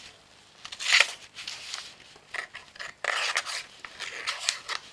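Ozark Trail Fathom folding knife blade drawn through material in several short scraping cutting strokes, the loudest about a second in. The factory edge is cutting poorly and needs sharpening.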